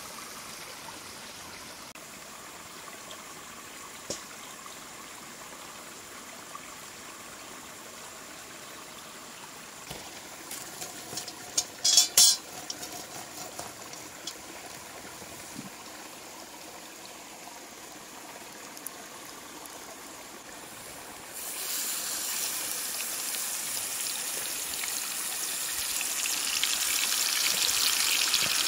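Steady trickling hiss, like a stream, with a few sharp clicks and knocks near the middle. About two-thirds of the way in, a loud frying sizzle starts suddenly and keeps growing louder as food begins to fry.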